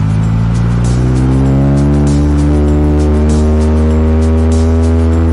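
Honda CR-Z Mugen RZ's four-cylinder engine and exhaust heard from inside the cabin, the pitch climbing gradually as the car gathers speed. Background music plays over it.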